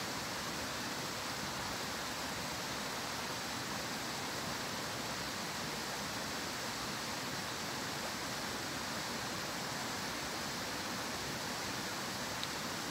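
Steady rushing of a small rocky stream, an even hiss of water that does not change.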